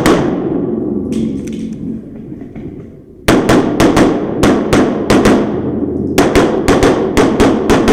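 Handgun fired in rapid strings during a competition stage: one shot at the start, then about nine shots a quarter second or so apart, a pause of about a second, and another quick string of about eight shots near the end, each shot followed by an echoing tail.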